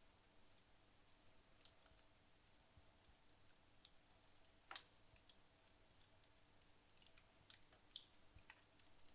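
Wood logs burning in a fireplace: faint, scattered crackles and small pops, with one louder pop about halfway through.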